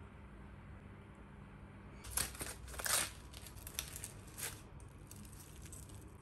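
Aluminium foil crinkling in a quick series of rustling bursts as a foil packet is pulled open by hand. The bursts come about two seconds in and last for about two and a half seconds.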